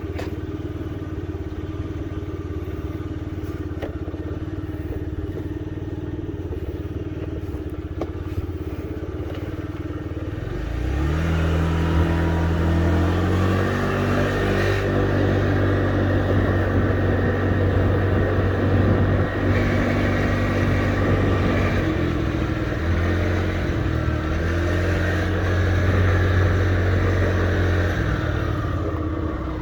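Honda Dio AF62 scooter's small four-stroke single-cylinder engine running steadily at low revs, then rising in speed about eleven seconds in and holding higher, with a couple of brief dips, before easing back near the end: the scooter's test run after repair.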